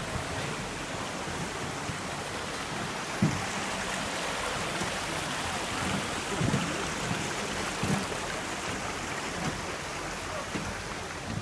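Steady rushing noise of water pouring down a large waterfall, with a few short low thumps scattered through it.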